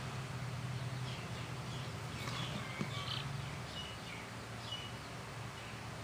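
Five-day-old chick peeping while held in the hand: a string of short, high chirps that fall in pitch, over a low steady hum.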